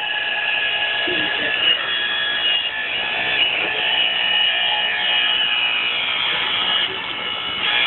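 A small motor running with a steady high-pitched whine over a rushing noise, dipping slightly for a moment near the end.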